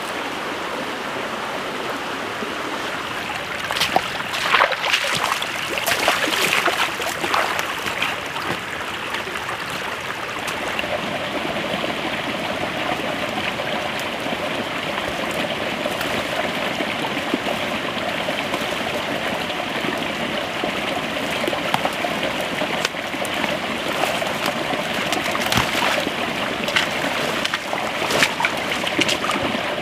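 Shallow woodland stream running over stones, a steady rushing with trickles. A few short knocks and rustles stand out, some about four to seven seconds in and more near the end.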